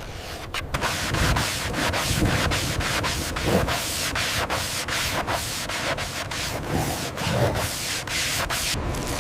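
Rapid, repeated scraping or rubbing strokes on a surface, about three or four a second, going on without pause.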